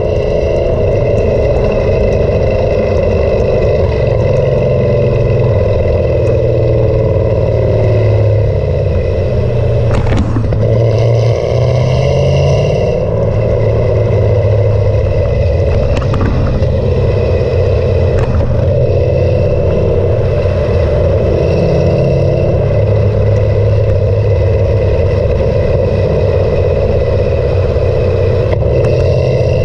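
Cammed Camaro SS V8 running through its MBRP exhaust at highway speed, a steady exhaust drone with no long full-throttle rise in revs, heard close to the tail of the car.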